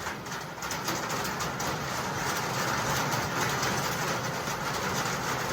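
Steady running noise of a vehicle, an engine with a continuous rumble.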